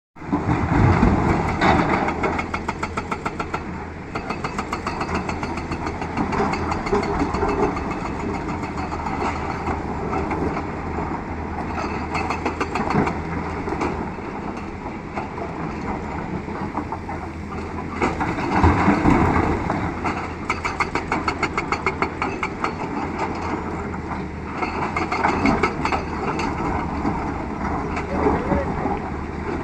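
Liugong CLG924E excavator's diesel engine running with a rapid, even pulsing beat, swelling louder several times, most strongly about 18 to 20 seconds in.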